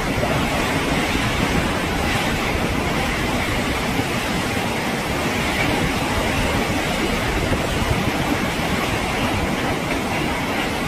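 Storm wind and heavy wind-driven rain: a steady rushing noise without let-up.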